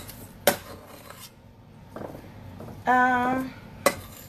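A big spoon clinking and scraping against a bowl and loaf pan as raw meatloaf mixture is scooped in, with a few sharp knocks. About three seconds in there is a short hummed vocal sound.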